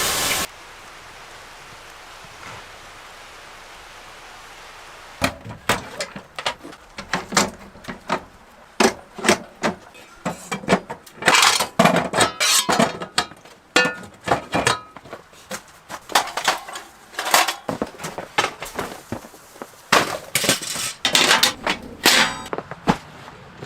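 Steady hiss that cuts off about half a second in, then after a few quiet seconds a long irregular run of sharp knocks, snaps and clinks, some with a brief ring.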